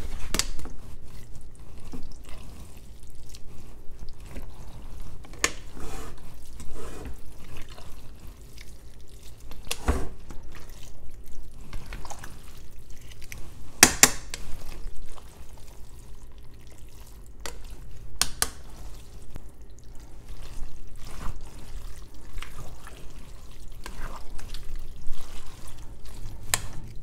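Spaghetti being stirred and tossed through a thick beef bolognese sauce in a pot: soft wet squelching, broken by scattered sharp clicks of a spatula and metal tongs against the pot, the loudest about halfway through. A steady low hum runs underneath.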